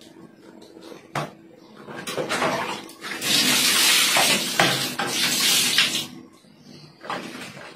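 Water scooped from a basin and poured out, splashing for about three seconds in the middle, with a few light knocks and clatters before it.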